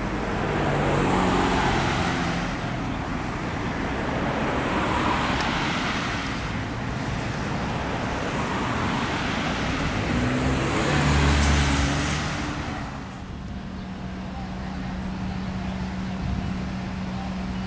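Road traffic on a busy parkway: several cars pass one after another, each swelling and fading with its engine and tyre noise. Traffic eases near the end, leaving a steady low hum.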